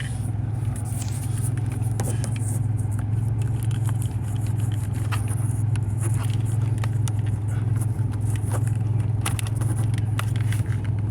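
Car engine idling steadily with a constant low hum, its exhaust just refitted after it had come loose and dropped. A few light clicks sound over it.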